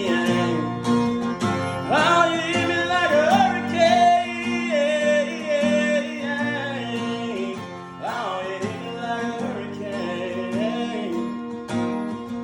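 Country song sung with guitar accompaniment: the guitar holds steady chords while the singer delivers two long, wavering, melismatic phrases.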